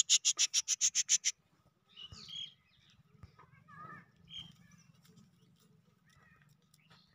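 A bird calling: a rapid run of about a dozen sharp, high chirps over about a second, then a few scattered high calls.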